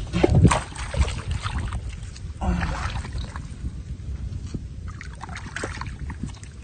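Shallow muddy water splashing and sloshing as fish are grabbed by hand, in irregular bursts with the loudest splash about half a second in.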